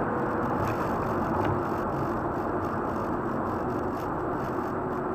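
Steady road and engine noise inside a car's cabin cruising at highway speed, with a faint even hum under it.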